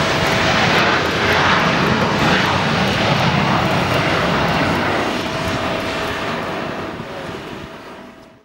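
Twin turbofan engines of an Embraer E-Jet at full takeoff power, a steady rushing noise with a faint constant high hum, the jet rolling on a wet runway and lifting off. The sound fades over the last few seconds as the jet climbs away, then cuts off.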